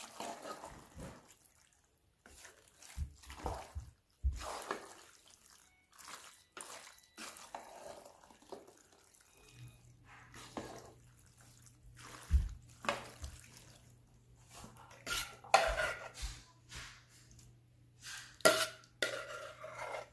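Wooden spatula stirring and folding saucy pasta in a nonstick pan: irregular wet squelches with occasional knocks of the spatula against the pan.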